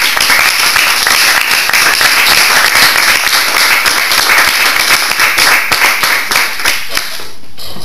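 Audience applauding, starting all at once and dying away about seven seconds in.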